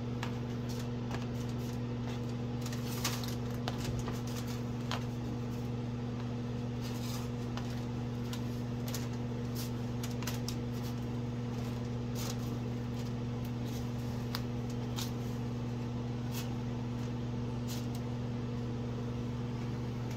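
A steady low electrical hum, with scattered light taps and rustles as pastry-wrapped sausages are picked off parchment paper and set onto a paper plate.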